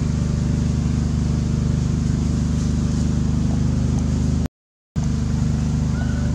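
A low, steady engine hum running at an even speed, which cuts out completely for about half a second a little past the middle.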